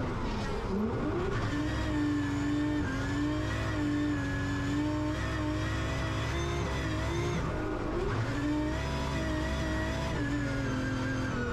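Drift car's engine held at high revs through a slide, the revs dipping sharply about half a second in and climbing straight back, then wavering with throttle as the rear tyres spin and smoke.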